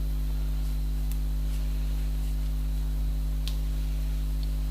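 Steady electrical mains hum with its harmonics, with a few faint light clicks of knitting needles working stitches.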